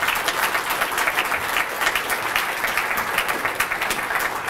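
Audience applauding: many people clapping together steadily.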